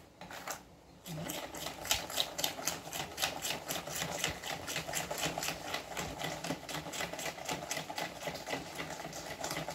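Cake batter of eggs, sugar and oil being beaten by hand in a bowl: a fast, even clicking of the utensil against the bowl, about five strokes a second, starting about a second in.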